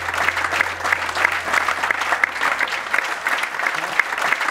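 A crowd applauding, dense clapping throughout, with a low held tone fading away over the first three seconds.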